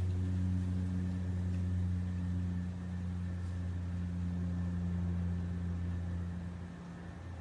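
A steady low mechanical hum that drops away near the end.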